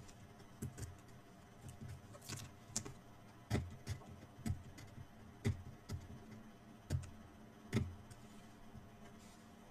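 Irregular light taps and clicks, about a dozen, as paper-craft pieces and a hand tool are handled and set down on a work table.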